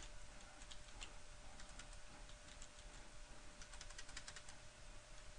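Faint computer keyboard typing: scattered key clicks, with a quick run of keystrokes about four seconds in, over a faint steady hum.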